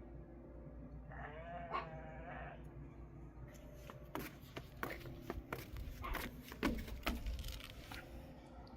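A goat bleats once, a wavering call about a second in, followed by a run of sharp clicks and knocks.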